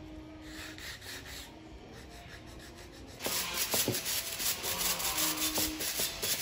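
Sandpaper rubbed by hand over a small carved wooden piece, faint at first. About three seconds in come louder, quick repeated scratchy strokes of a stiff bristle brush sweeping sanding dust off the wood.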